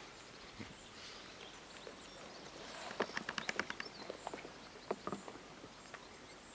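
Quiet outdoor river ambience with faint scattered taps and clicks, a quick run of them about three seconds in.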